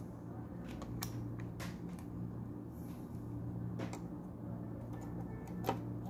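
Small plastic clicks and taps from multimeter test probes and wires being handled against a circuit board, a few scattered knocks with the loudest near the end, over a steady low hum.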